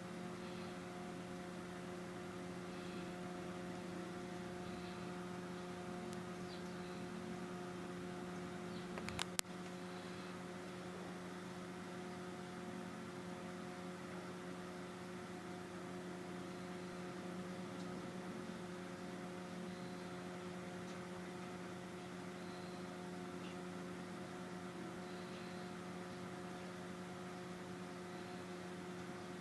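Steady electrical hum with a few even overtones, unchanging throughout, and one short click about nine seconds in.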